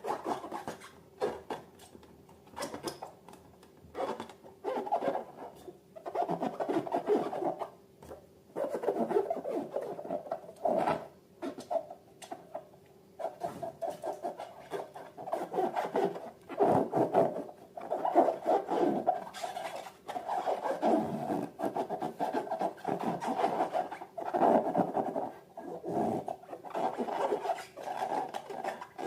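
Irregular rubbing and scratching strokes of rubber balloons and slime being handled and worked by hand, coming in quick bursts one after another over a faint steady hum.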